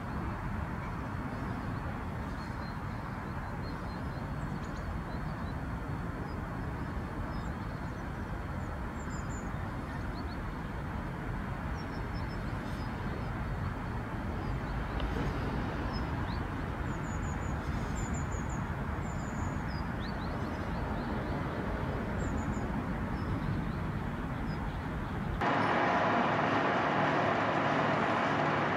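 Steady low engine rumble of heavy machinery, with small birds chirping faintly above it. About 25 seconds in, the sound cuts abruptly to a louder, harsher steady engine noise.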